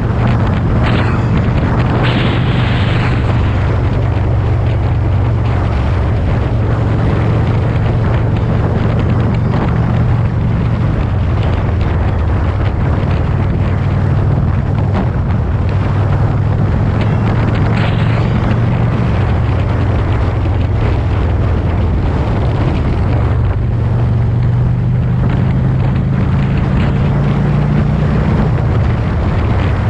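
Motorcycle engine running at a steady road speed, with heavy wind noise on the microphone. Near the end the engine note climbs, then drops sharply.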